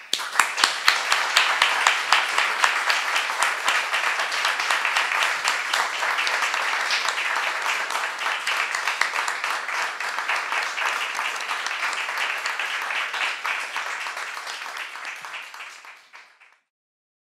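Audience applauding, many hands clapping in a dense steady patter that fades out near the end.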